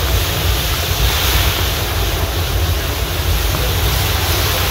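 Fish deep-frying in a large karahi of hot oil: a loud, steady sizzling hiss as the oil froths up around the fish, over a low rumble.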